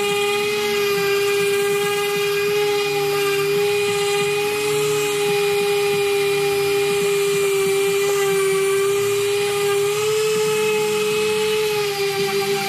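Electric random orbital sander running steadily while sanding the face of a wooden chopping board, its motor giving a steady whine over the rasp of the sanding disc on the wood.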